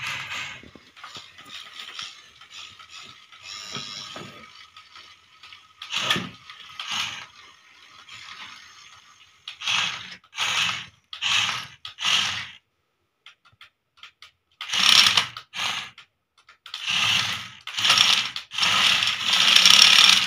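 Plastic gear motors of a battery-powered remote-control toy excavator whirring. The whir is steady at first, then comes in short spurts of about half a second as the toy is driven in stops and starts, with longer, louder spurts near the end.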